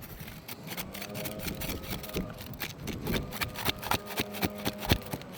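A rapid, irregular run of clicks and taps that grows denser and louder, with one sharp knock about five seconds in, over a steady low hum.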